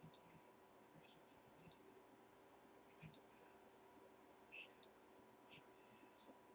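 Near silence: a faint steady hum with a few faint, sharp clicks scattered about a second or so apart.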